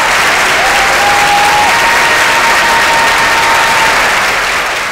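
Audience applauding loudly, with a couple of long, steady tones held over the clapping, and the applause starting to fade near the end.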